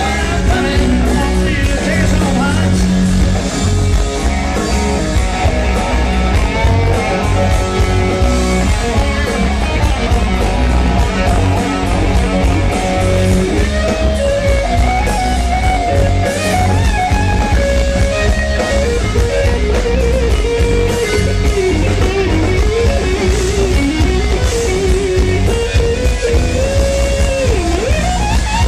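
Live rock band playing loud with electric guitars and drums, an electric guitar lead on an Explorer-style guitar carrying bending, sliding notes through the second half.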